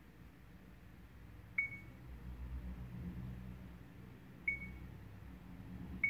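Mio MiVue 786 dashcam beeping as its touchscreen menu is tapped: three short, high, single-pitch beeps, each with a faint click, a second or more apart.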